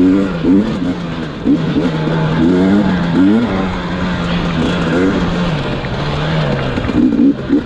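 KTM 250 XC TPI's single-cylinder fuel-injected two-stroke engine under way, revving up and down in repeated short throttle bursts. It holds steadier for a few seconds past the middle, then blips quickly again near the end.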